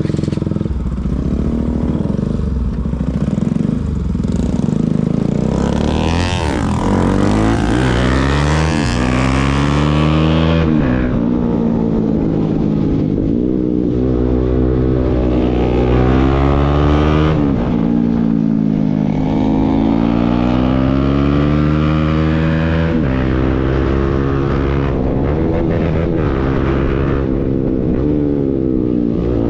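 Motorcycle engine through an aftermarket Akrapovic full-system exhaust, its note rising and falling again and again as it is revved and ridden.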